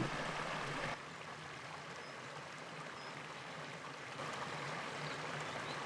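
Fast-flowing mountain stream rushing steadily, its level dropping a little about a second in. A few faint short high chirps are heard over the water.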